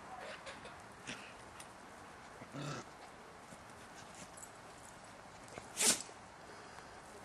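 Belgian Shepherd dogs playing: a short low dog sound about two and a half seconds in and a louder, sharp, sneeze-like burst near the end, with a few light knocks and rustles in between.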